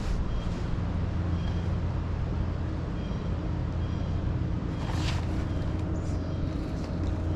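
Bass boat's electric trolling motor humming steadily, with a brief clicking rattle from the baitcasting reel about five seconds in.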